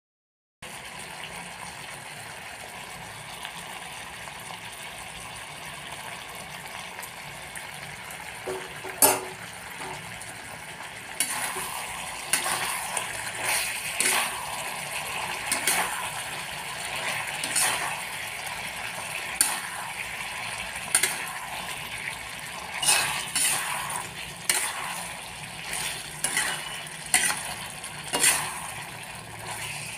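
Chicken curry sizzling steadily in a kadhai. From about eleven seconds in, a spatula stirs and scrapes through it, knocking against the pan every second or so. One sharp knock comes a little before that, about nine seconds in.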